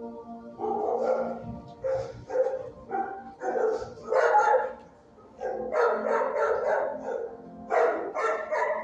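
Shelter dogs barking in repeated bursts of short barks, with a lull about five seconds in.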